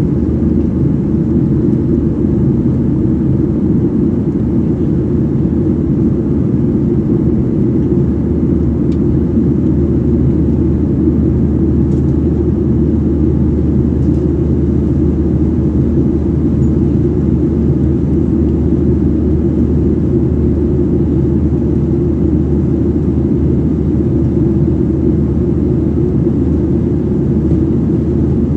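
Steady, deep engine and airflow noise inside the cabin of a Boeing 737-800 climbing after takeoff, its CFM56-7B turbofans at climb power.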